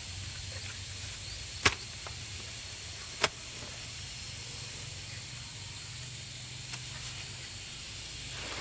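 Two sharp knocks, about a second and a half apart, over a steady low hum and high hiss.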